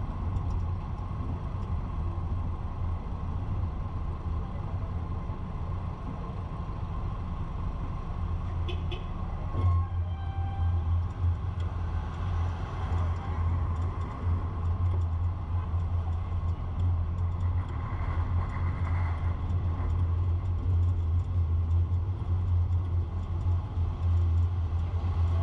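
Steady low rumble of a vehicle driving slowly through city traffic. About ten seconds in there is a short high pitched tone.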